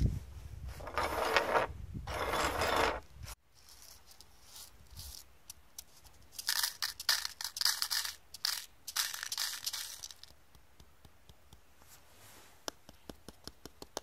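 Small gold-plated connector pins poured into a plastic cup, rattling and clinking in several bursts, followed by a scatter of light clicks as the last pieces settle. In the first few seconds, two bursts of rustling handling noise with a low rumble end abruptly.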